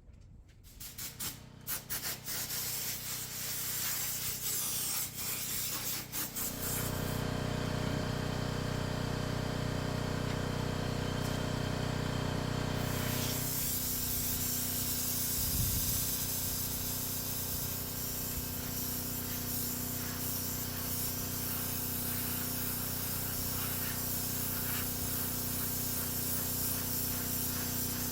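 Paint spray gun hissing steadily while spraying black base coat, with a steady motor hum underneath. Irregular clicks and knocks of handling come first, and the spraying starts about six seconds in.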